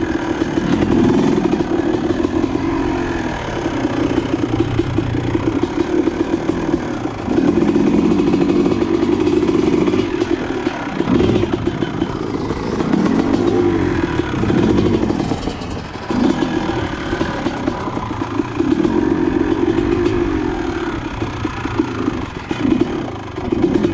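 Honda CR250R single-cylinder two-stroke dirt bike engine on a trail, revving up and falling back over and over as the throttle is opened and closed, easing off briefly a few times.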